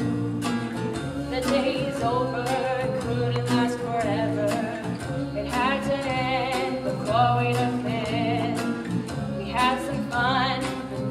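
Song from a stage musical: a woman singing long, wavering notes over a steady guitar accompaniment.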